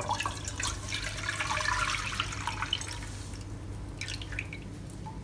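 Thin rice-flour batter pouring from a glass bowl into a non-stick pan, a liquid splashing sound that is strongest in the first few seconds and thins to a trickle and drips near the end. A short knock at the start.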